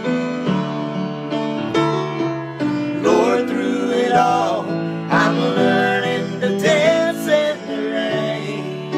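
Grand piano playing the closing bars of a gospel song, with a voice singing wordless runs over it through the middle.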